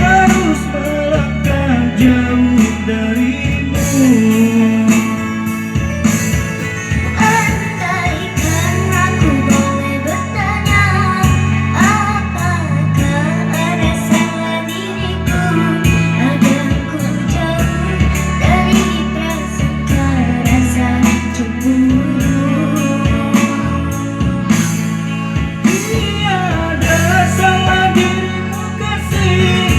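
A young girl singing a song in a clear, gliding melody over instrumental accompaniment with guitar, bass and a steady beat.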